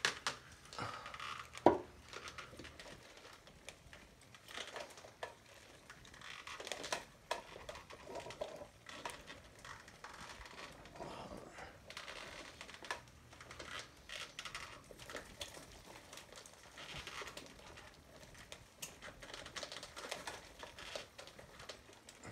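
Irregular rustling and crinkling of a puppet's costume and skin as the puppet is moved, with scattered small clicks and one sharp click a little under two seconds in.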